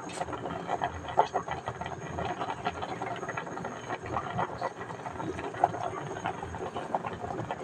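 Water boiling hard in a metal pot of whole tilapia: a steady, dense bubbling and popping, with a few louder pops along the way.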